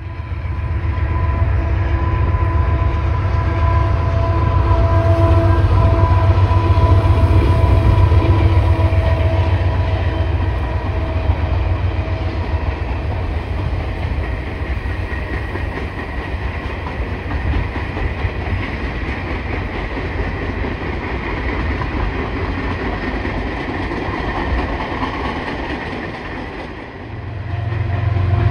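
Canadian Pacific coal train rolling past: its long string of coal cars gives a steady low rumble with wheel clatter. A few steady tones ride over it for roughly the first ten seconds.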